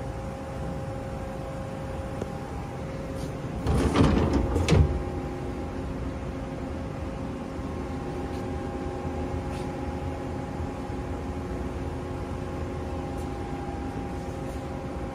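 Steady hum of a powered-up Haas SL10 CNC lathe, with a couple of faint steady tones. About four seconds in, a brief clatter of several knocks, like a door or panel being moved.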